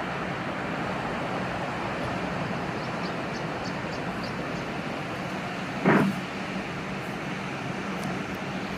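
Steady wash of sea surf, with one brief, louder thump about six seconds in.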